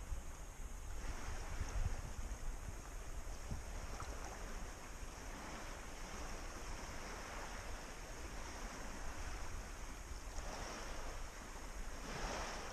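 Lake water sloshing around people wading waist-deep, with wind rumbling on the microphone; the sloshing swells briefly near the end.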